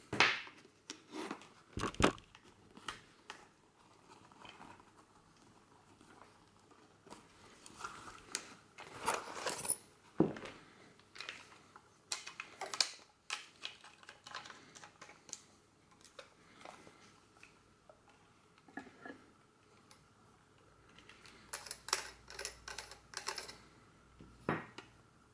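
Handling noises: a leather camera case rustling and crinkling as a Braun Nizo S8 Super 8 cine camera is taken out and turned over in the hands, with scattered light clicks and knocks.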